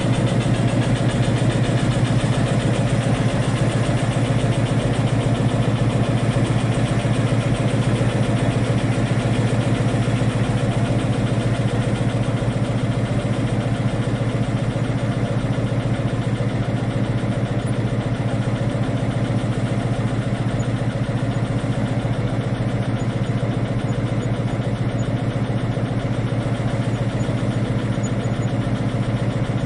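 Diesel train engine running steadily, a deep, even throb with a rapid firing beat.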